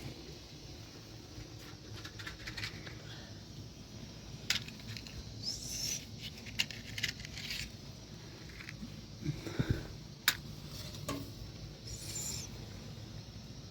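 Small handling noises: scattered sharp clicks and light knocks with a couple of brief rustles, over a low steady background.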